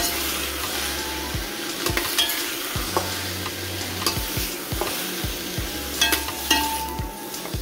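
Shredded cabbage, carrot and celery sizzling in a hot stainless steel pan while metal tongs stir them and lift them out, with frequent clicks and scrapes of the tongs on the pan.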